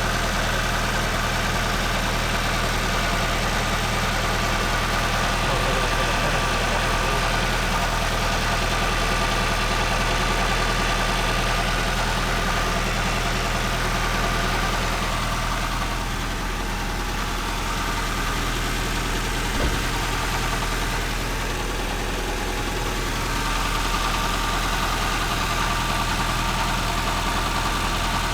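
2000 Nissan Altima's 2.4-litre four-cylinder engine idling steadily while its cooling system is burped after a thermostat replacement, warming up for the new thermostat to open. One short click about two-thirds of the way through.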